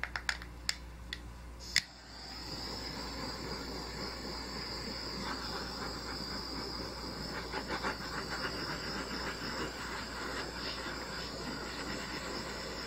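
Handheld butane torch: its igniter clicks several times, then it lights about two seconds in and burns with a steady hiss as it is passed over the wet acrylic pour paint.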